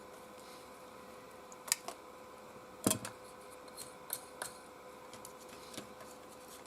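Scattered light clicks and knocks of plastic parts being handled as a travel hairdryer's casing is opened up, the sharpest about three seconds in.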